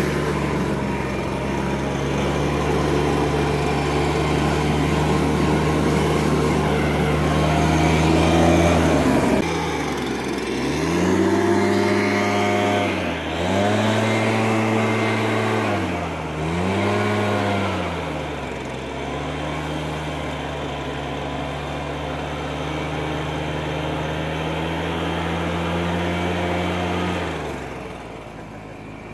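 Gas-powered leaf blower engine running at a steady high speed. Between about ten and nineteen seconds in, the throttle is let off and opened up again four times, so the pitch falls and rises each time. The engine then runs steadily again and shuts off near the end.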